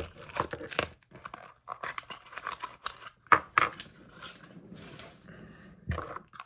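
Small toy packaging being handled and torn open by hand: irregular crinkling and tearing with scattered clicks, and one sharp snap a little past three seconds.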